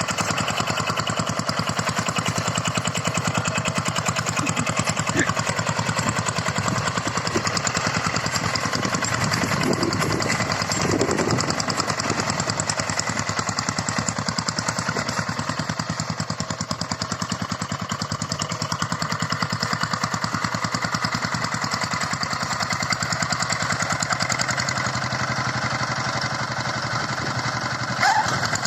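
Walk-behind hand tractor's single-cylinder diesel engine running steadily with an even, fast firing beat while ploughing. A short, sharp sound stands out near the end.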